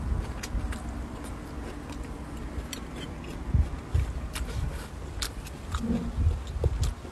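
A person chewing a mouthful of food close to the microphone: soft wet chewing with scattered small crisp clicks.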